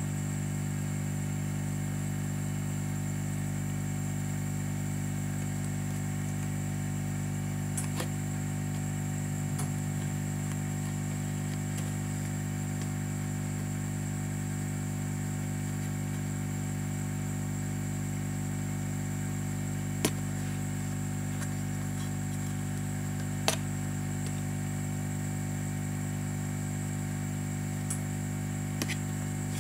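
Steady electrical hum with a faint constant high whine, broken by a few short sharp clicks: one about eight seconds in, two louder ones past twenty seconds, and a couple near the end.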